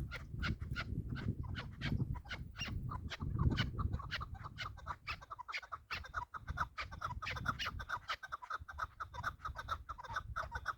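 Chukar partridges calling: a fast, continuous run of short repeated clucking notes.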